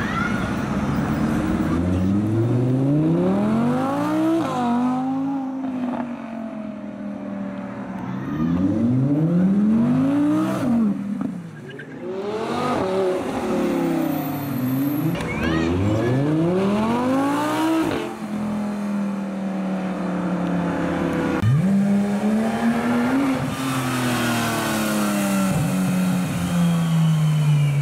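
Sports cars accelerating hard away one after another, each engine note climbing and dropping back at every upshift, among them an Audi R8 and a Porsche 911 GT3. Near the end one engine holds a long, slowly falling note as the car drives off.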